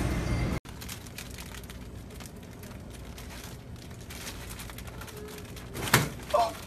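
A loud rushing noise cuts off abruptly, giving way to quiet shop room tone with faint scattered clicks. Near the end comes a sharp tap followed by a brief, bending high sound.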